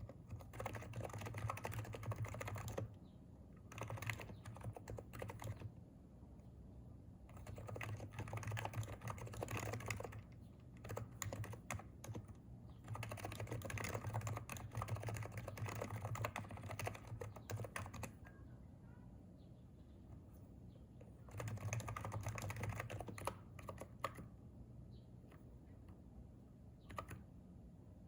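Typing on a Hansung electrostatic capacitive (contactless) keyboard: rapid runs of keystrokes lasting a few seconds each, separated by short pauses, with a few single keystrokes near the end.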